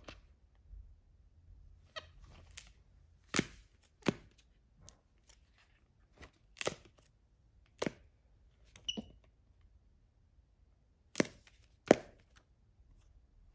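A capuchin monkey handling hardcover books: a string of sharp, irregularly spaced taps and slaps of covers and pages, about seven clear ones, the two loudest near the end. A brief high squeak comes about nine seconds in.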